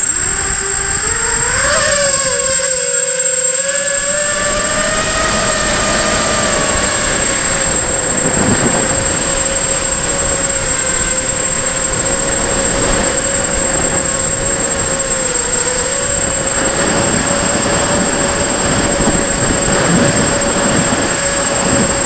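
Brushless motors and propellers of a 250-size FPV racing quadcopter, recorded from its onboard camera. The motor whine rises in pitch for about two seconds as it spools up and lifts off, then holds a steady hum under a thin, constant high whistle, mixed with wind rush.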